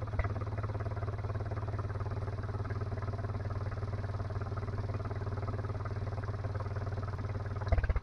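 Freshly rebuilt Polaris Sportsman 335 ATV's single-cylinder four-stroke engine idling steadily at an even pitch. Just before the end the sound abruptly jumps louder.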